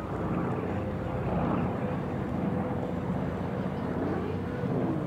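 Grumman Wildcat's radial engine droning steadily as the fighter flies past overhead.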